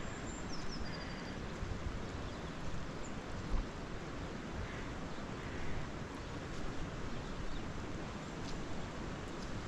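Steady outdoor noise of wind gusting on the microphone, with a small bird chirping a few times near the start.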